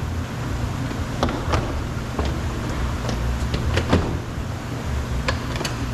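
Chevy Tahoe door trim panel being lifted up off the door: a series of sharp plastic clicks and knocks, the loudest about four seconds in, over a steady low hum.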